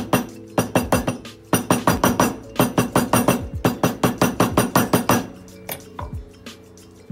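A small hammer tapping a metal stamping tool into a leather strip, rapid sharp taps about four or five a second in short runs, stopping about five seconds in.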